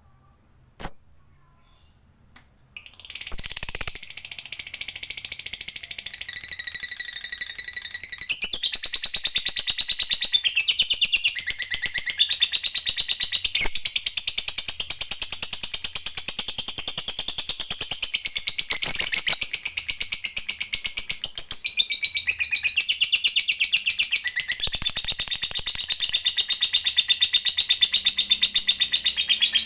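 Lovebird giving a long ngekek, the rapid high chattering trill that lovebird keepers prize, starting about three seconds in and running on without a break after a few short chirps.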